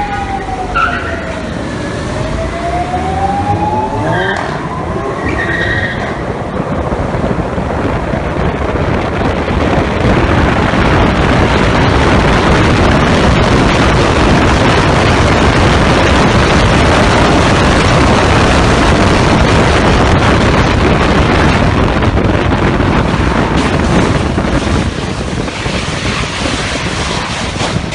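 Car engines revving in a tunnel, their pitch falling and then rising over the first few seconds. Then a loud, steady rush of engine, tyre and wind noise from inside a car accelerating hard through the tunnel, easing off a little near the end.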